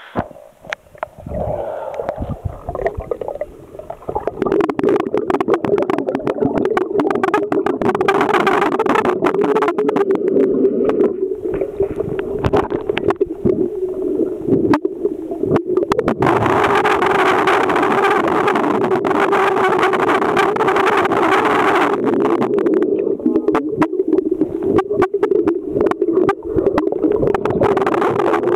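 Water in a swimming pool heard from under the surface: gurgling with a steady hum throughout, and many short clicks and knocks. It is uneven for the first few seconds, then steady.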